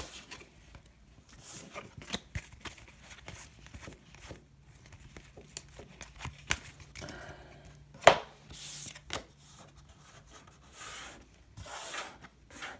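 Trading cards being handled, slid and set down on a wooden tabletop: scattered soft taps and rubbing rustles, with one sharper knock about eight seconds in.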